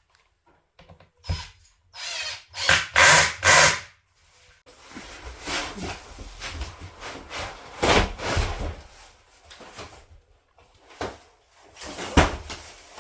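Work on flat-pack kitchen cabinets: bursts of rubbing and scraping, with sharp knocks about eight seconds in and again near the end.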